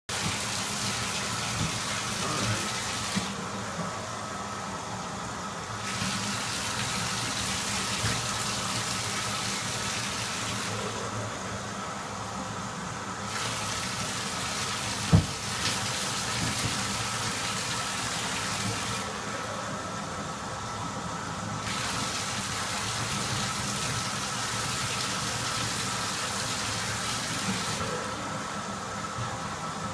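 Water running steadily, its high hiss dropping away for a couple of seconds four times, with one sharp knock about halfway through.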